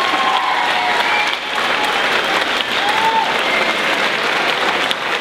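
Crowd applauding steadily, with a few short cheers rising above the clapping.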